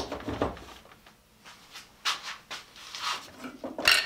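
Scattered rustling and light knocks of handling at a workbench, then at the very end an electric arbor motor switches on and a freshly mounted nylon-bristle abrasive brush wheel starts spinning in its chuck.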